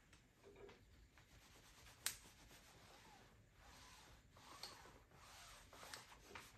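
Faint rubbing of a steam iron sliding over a Teflon sheet laid on a T-shirt, with one sharp click about two seconds in.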